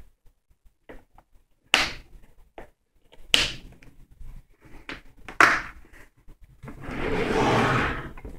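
Plastic tool case being shut: three sharp clicks about two seconds apart as its latches snap closed, then a steady scraping noise for about a second and a half near the end.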